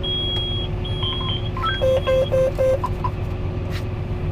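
Electronic beeps from a tractor's in-cab display. A held high tone comes first, then a string of short beeps at different pitches, including four lower beeps about a quarter second apart a couple of seconds in. Under them run the tractor's engine and a steady hum.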